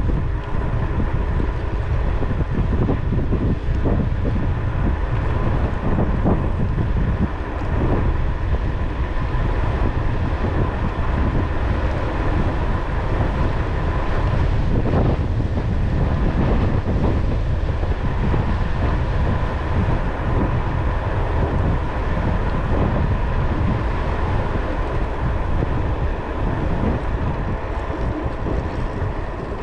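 Wind buffeting the microphone of a rider coasting downhill on an e-bike at about 23 mph: a steady, loud low rumble of rushing air with a faint steady whine above it.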